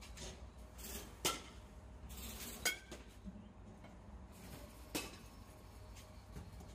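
Metal baseball bats hitting balls in batting cages: three sharp, ringing pings over about four seconds, over a low steady hum.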